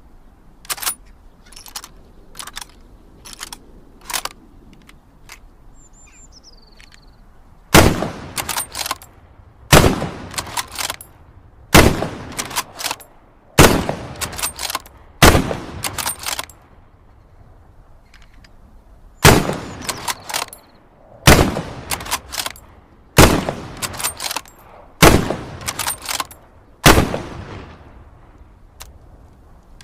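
Lee-Enfield bolt-action rifle: a few light metallic clicks, then ten shots about two seconds apart in two strings of five with a short pause between. After each shot come quick clicks as the bolt is worked.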